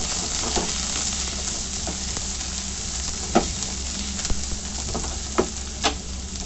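Chopped carrots and French beans sizzling in hot oil as they are stir-fried in a pan, with a spatula knocking against the pan a few times, most sharply about three and a half and six seconds in.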